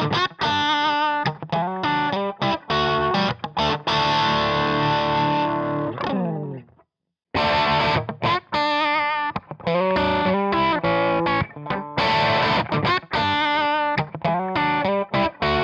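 Crunchy, distorted electric guitar loop from a Fender Stratocaster through a Kemper profile of a Marshall JCM800, heard through a Celestion Copperback 1x12 closed-back cab impulse response. It stops about six and a half seconds in, and after a short silence the same loop starts again through a Celestion Ruby 1x12 open-back cab impulse response.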